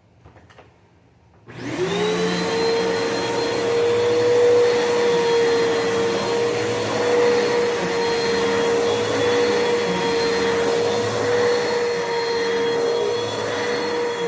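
Bissell PowerForce Bagless 6583 vacuum cleaner switched on: after a faint click, its motor starts about a second and a half in with a quickly rising whine, then runs steadily.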